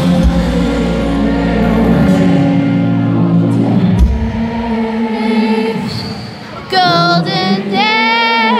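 Live pop-rock band and singer heard from the crowd. The full band plays loudly with heavy bass until about four seconds in, when the bass and drums drop out and leave a quieter sustained backing. Near the end, loud held sung notes with a wavering pitch come in twice.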